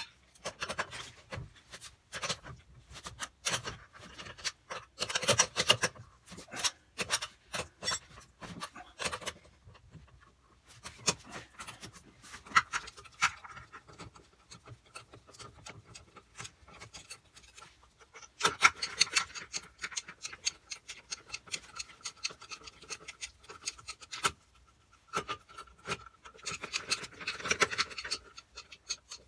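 Ratchet socket wrench clicking in quick runs, with short pauses, as it turns the wheel nuts on a steel wheel.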